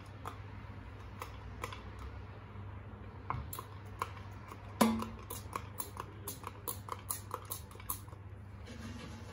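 Oil mister spraying short bursts of oil into an air fryer basket: a few spritzes at first, then a quick run of about three a second for several seconds, with one heavier knock against the basket near the middle.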